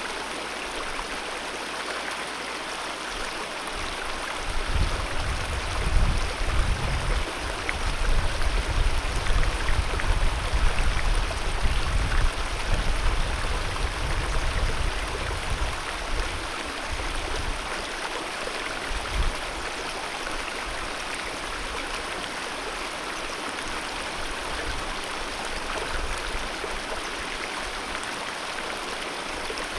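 Alpine mountain river rushing steadily over rocks, a constant even wash of water noise. From about four seconds in to about seventeen seconds there is an irregular low rumble under the water sound, with one more brief bump a couple of seconds later.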